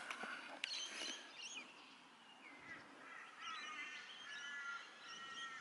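Faint birdsong: wavering, gliding calls in the middle, then a few held whistled notes running on to the end.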